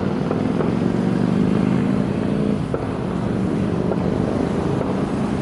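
Motorcycle engine running steadily close by, with a little wind noise on the microphone.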